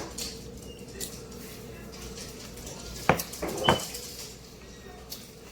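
Tableware clinking and knocking during a meal: a few light clicks, then two sharp knocks about half a second apart, the second with a brief ring.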